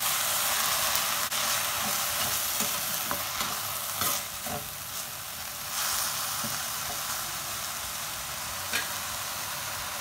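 Moringa (drumstick) leaves sizzling in oil in a metal kadai, with a little water added to cook them, while a perforated steel skimmer stirs them and scrapes against the pan. The stirring scrapes come in a cluster in the first half, with a single knock near the end.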